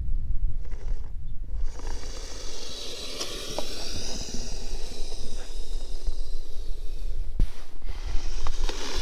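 Kyosho Blizzard RC snow vehicle running through snow: the whine of its electric drive rises and falls in pitch through the middle, with scraping and a few clicks, over a steady low rumble.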